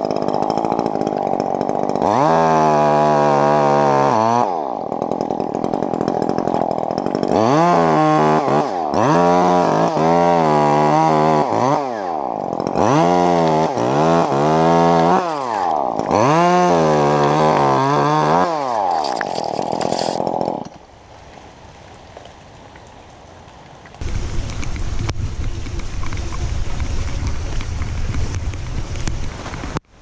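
Chainsaw up in a hemlock, running at a fast idle and then revved in a series of throttle bursts, each rising and dropping in pitch as it cuts, before it stops about two-thirds of the way in. For the last few seconds, wind noise on the microphone and rain.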